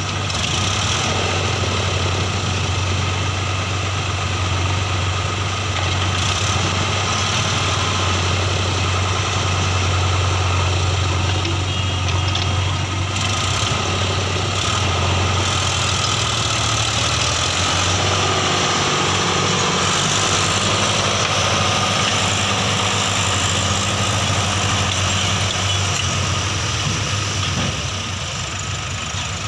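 Diesel engines of a JCB 3DX backhoe loader and a tractor running steadily at close range while the backhoe loads mud into the tractor's trolley, a constant low hum. Near the end the engine sound drops a little.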